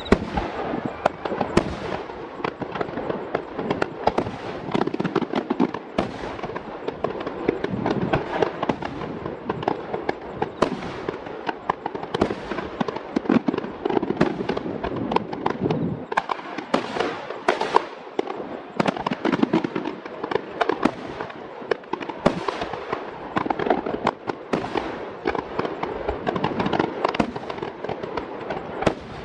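Fireworks display in a dense, unbroken barrage: many sharp shell bursts every second with crackling between them.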